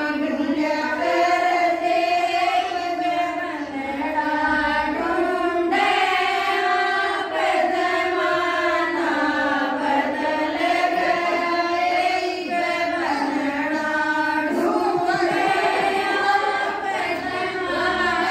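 Women's voices singing a devotional bhajan, the melody running on without a break.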